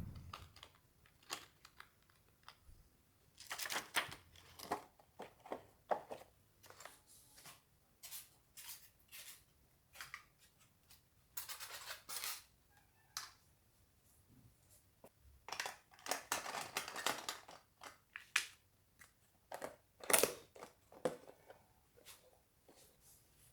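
Close handling sounds: a string of irregular short clicks, scrapes and rustles, as of objects being picked up, set down and worked by hand.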